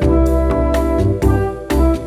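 Background music with a steady beat and sustained keyboard chords.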